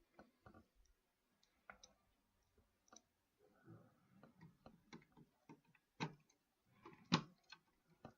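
Scattered light clicks and taps of a screwdriver and screws as a motherboard is screwed down into a computer case, irregular, with two sharper knocks near the end.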